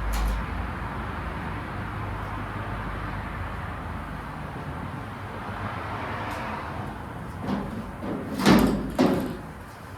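Steady hiss of paint being sprayed onto the truck bed side. It stops near the end amid two loud knocks about half a second apart.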